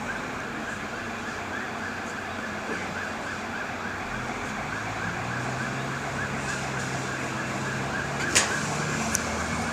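Emergency vehicle siren sounding in a fast, repeating rise-and-fall pattern over street noise, with a sharp knock about eight seconds in.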